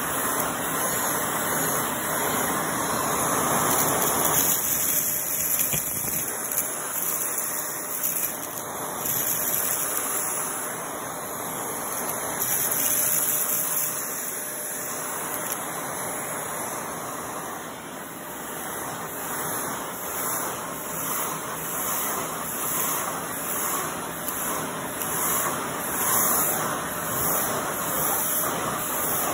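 Shark vacuum cleaner running with a crevice tool on carpet: a steady rushing suction noise, with small ticks and rattles as loose rocks are sucked up the tube.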